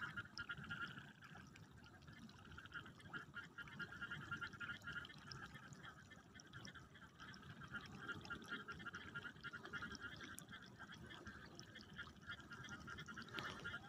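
Faint bubbling and trickling of groundwater welling up through the flooded furrow of a paddy field: many tiny pops and ticks. Behind it runs a steady, faint, high-pitched chorus.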